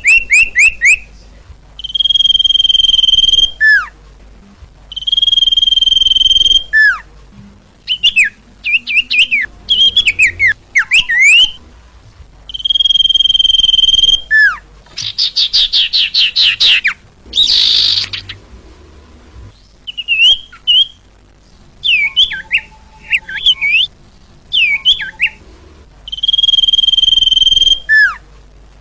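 Sirtu bird song: long, steady, high whistled notes of about a second and a half, sounded five times, alternating with rapid downward-sweeping chirps and a fast trill. This is the kind of song played as a lure (pikat) to attract sirtu birds.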